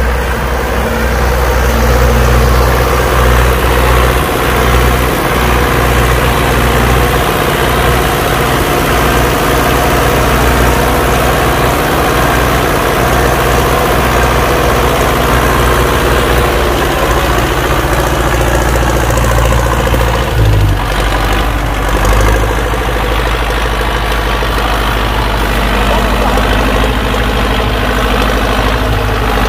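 Belarus 805 diesel tractor engine running close by, pulling a loaded rice trailer through mud; its note shifts about two-thirds of the way in.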